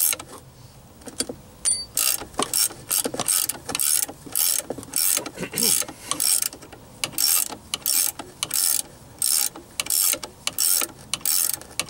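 Ratcheting combination wrench clicking in short bursts, about two a second, as it is swung back and forth on a strut's top nut to back it off. The clicking starts about a second and a half in.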